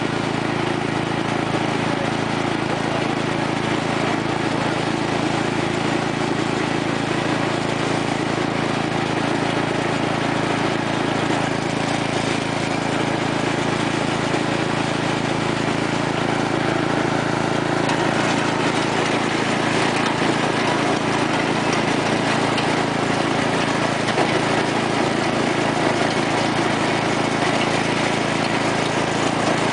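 Sears Craftsman lawn tractor's 12 hp Briggs & Stratton engine running steadily through an MTD-style muffler while the tractor is driven along.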